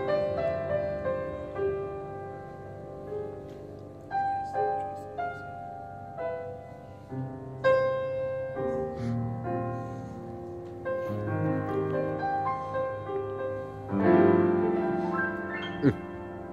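Grand piano playing a jazz ballad, single notes and chords struck and left to ring out and fade, building to a louder run of chords near the end. A short sharp knock is heard just before the end.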